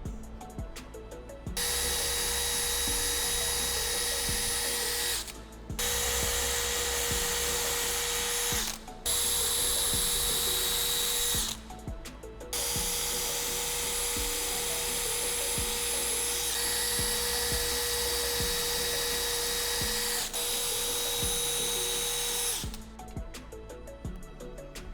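An electric power tool's motor running at a steady speed with a constant whine, in four runs separated by short stops, the last lasting about ten seconds.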